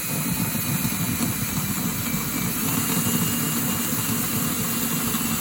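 Electric drill running steadily at low speed, drilling a metal chainsaw muffler's bolt hole bigger: a steady motor whine with a second, higher whine joining about halfway through.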